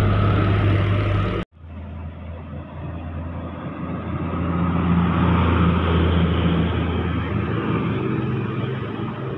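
Heavy diesel trucks passing close by on a road: a loaded dump truck's engine runs past and cuts off abruptly about one and a half seconds in, then a Mitsubishi cargo truck's engine grows louder as it approaches, is loudest about halfway through, and fades as it goes by, over road traffic noise.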